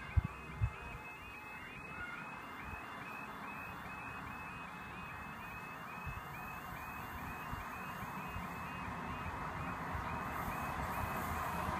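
Railway level crossing warning alarm sounding, a repeating electronic tone several times a second, while an approaching train's rumble grows steadily louder toward the end. Two short knocks just after the start.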